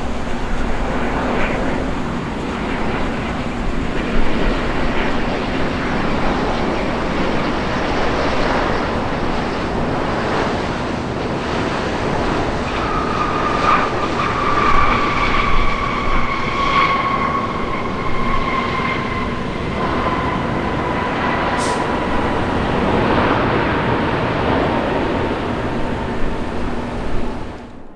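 Airbus A350-900 jet airliner's Rolls-Royce Trent XWB engines going by: a steady loud roar, with an engine whine that slowly falls in pitch through the middle as the aircraft passes.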